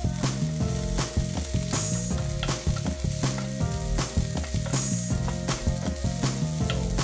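Chopped garlic and spring onions sizzling in a little hot oil in a non-stick frying pan while a wooden spatula stirs them, over background music with a steady beat.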